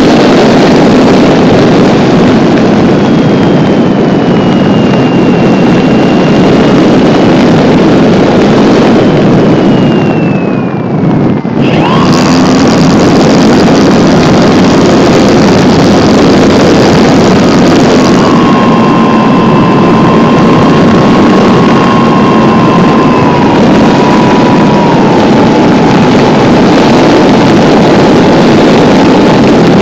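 HeadsUpRC Brushless 480 Plus electric motor and propeller of an RC plane whining, heard through the onboard camera's microphone under a heavy rush of wind. About ten seconds in the whine slides down in pitch and the sound briefly dips as the throttle comes off, then it picks up again sharply at about twelve seconds with a new whine that later steps down in pitch.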